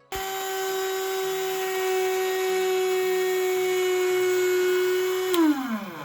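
Electric geared motor drive on a model railway turntable switched on: a loud, steady, high whine that the owner calls very noisy. About five seconds in it is switched off with a click, and the whine falls in pitch as the motor spins down.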